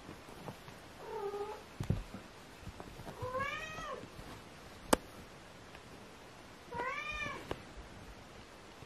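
Golden British shorthair kitten meowing three times during play: a short falling meow, then two longer meows that rise and fall in pitch. A single sharp click about five seconds in.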